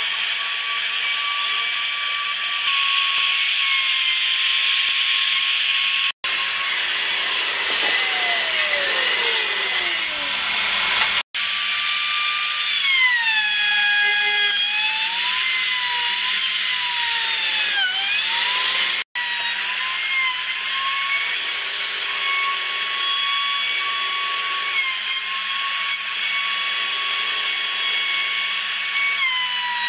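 Compact trim router with a dovetail bit running with a high steady whine, its pitch sagging as the bit bites into the wood. In one stretch the motor winds down with a steadily falling whine, and the sound cuts off abruptly three times.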